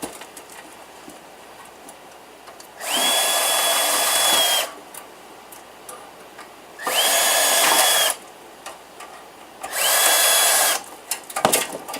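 A power drill runs three times, each run lasting one to two seconds with a whine that rises briefly as it spins up and then holds steady, as it backs screws out of a steel PC case. Small handling clicks come between the runs and near the end.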